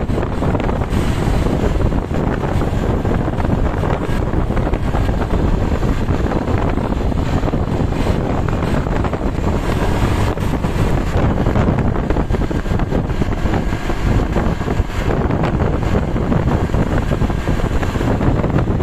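Wind buffeting the microphone on a moving vehicle: a steady, loud rumble over the running noise of the road and engine, with no horn sounding.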